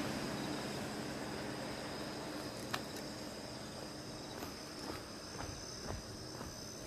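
A steady high-pitched insect chorus, with the rumble of a passing aircraft fading out. Footsteps on a path start about halfway through.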